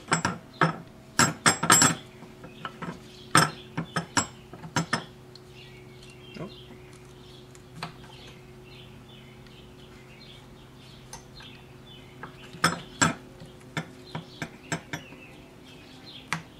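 Sharp metallic clicks and clinks of a small metal tool working against a brake master cylinder clamped in a vise, prying at its stuck piston. The clicks come in clusters near the start, again around three to five seconds in, and near the end, over a steady low hum.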